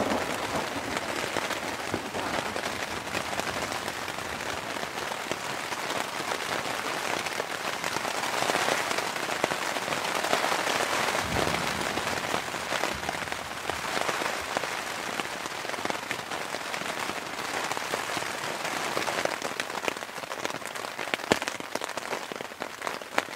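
Rain pattering on the fly of a North Face Triarch backpacking tent, heard from inside, with gusts of wind; the rain comes down heavier for a few seconds about a third of the way in.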